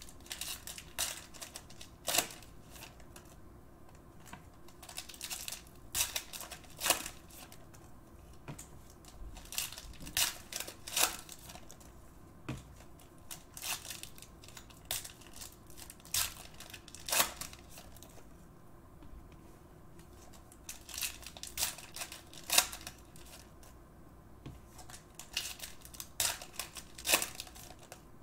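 Foil trading card pack wrappers being torn open and crinkled, with cards handled and stacked. The crackles and rustles come in irregular clusters.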